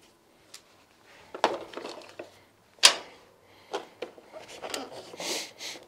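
Metal parts being handled: a few separate clinks and knocks, the sharpest about three seconds in, with a brief scraping rustle near the end.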